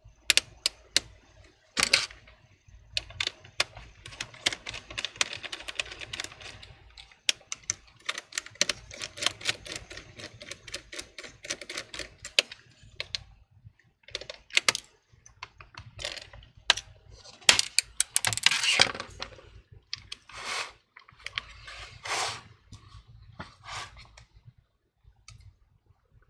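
Plastic clicks and taps from a broken HP 17 laptop being handled: keys, touchpad and cracked case plastics. Sharp irregular clicks come throughout, with a few longer rustling scrapes in the second half.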